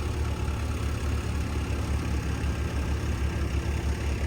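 Engine of the lifting equipment idling with a steady low rumble.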